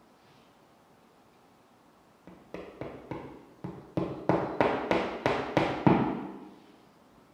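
A hammer driving a fine finishing nail through a carpet tile into the wall: about a dozen quick taps at roughly three a second, growing louder, starting about two seconds in.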